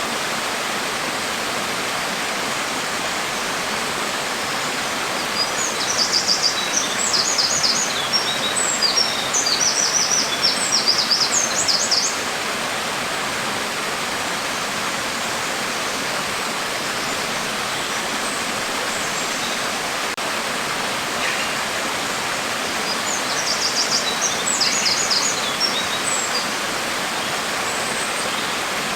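Steady hiss of falling rain. A bird chirps in quick high trills twice, for several seconds about a fifth of the way in and again for a few seconds near the end.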